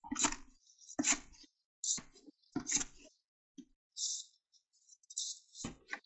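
Wet bag-mixed concrete being scooped and worked in a plastic bucket: a series of short scrapes, roughly one a second.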